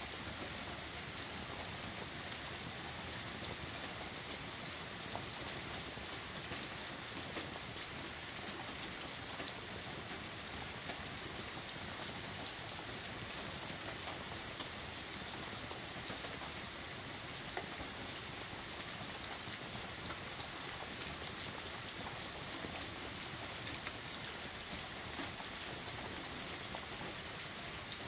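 Heavy rain falling steadily on a camper's roof, heard from inside: an even hiss with scattered single drops ticking through it.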